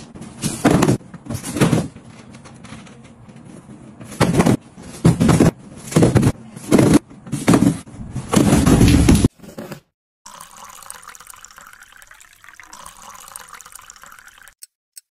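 Cardboard delivery boxes being heaved, dropped and shoved onto a pile: a run of loud rustling thuds and scrapes. About nine seconds in it cuts off, and a much quieter steady hum follows.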